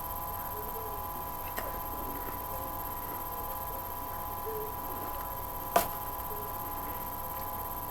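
A steady electrical hum with a faint click about one and a half seconds in and a sharper click near six seconds.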